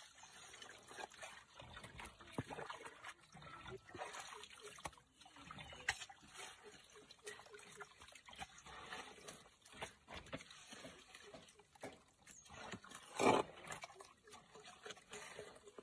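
Faint, irregular scraping and splashing of wet mud being dug with a hoe in a water-filled trench, with water trickling. One brief, louder sound comes near the end.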